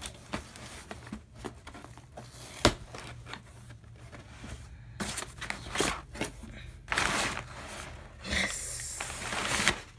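Crumpled brown packing paper rustling and crinkling as it is pushed and pulled aside inside a cardboard box, with one sharp knock a few seconds in. Longer stretches of rustling follow in the second half.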